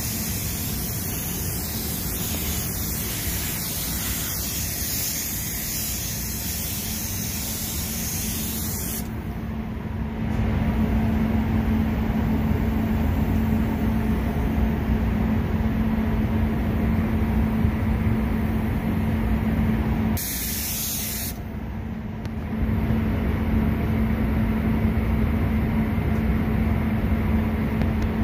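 Paint spray gun hissing with compressed air for about nine seconds, cutting off abruptly, then a second short burst a little over twenty seconds in. Under it runs a steady low hum and rumble of the spray booth's ventilation.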